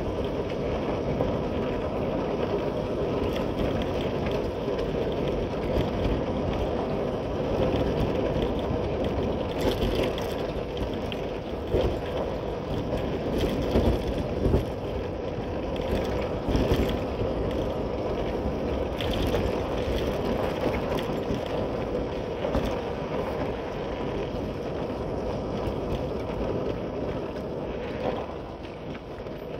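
Motorcycle riding along, its engine and road noise running steadily, with a few short knocks or rattles around the middle.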